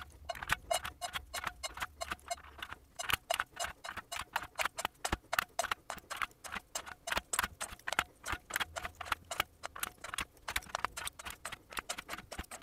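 One-piece plastic keycaps being pulled off an IBM Model M-type keyboard: a rapid, irregular run of sharp plastic clicks, several a second.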